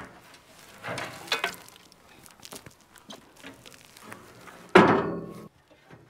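Fabric rustling as a hoodie is pulled on, with scattered small clicks and one louder brush of cloth about five seconds in.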